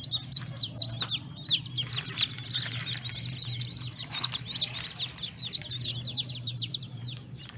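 A brood of newly hatched chicks peeping continuously: many rapid, high-pitched cheeps overlapping one another, over a low steady hum. It stops abruptly at the end.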